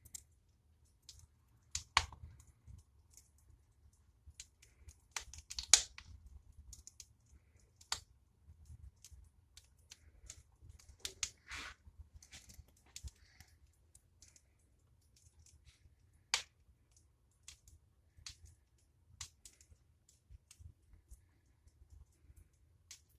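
Fire in a fireplace crackling, with irregular sharp pops, a few of them much louder than the rest, over a faint low rumble.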